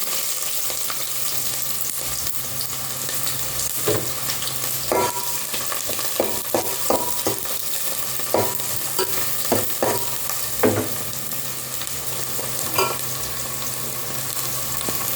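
Chopped red onion sizzling in hot cooking oil in a pot, a steady frying hiss. A utensil stirring the onion clicks and scrapes against the pot, most often between about six and eleven seconds in.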